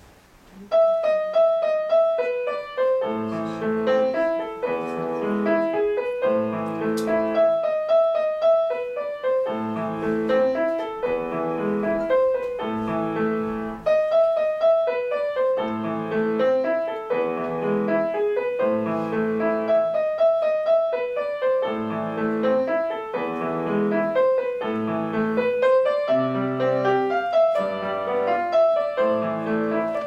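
Grand piano played solo, starting under a second in: a melody line in the middle register over repeated chords lower down.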